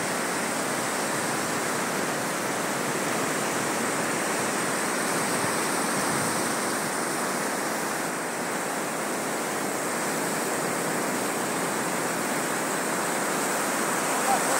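Ocean surf breaking and washing up a sandy beach: a steady, even rush of waves.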